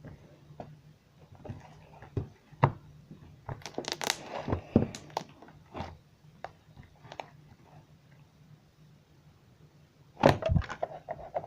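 Slime being squeezed and kneaded by hand, making irregular crackling pops as trapped air bubbles burst, busiest around four seconds in and again near the end.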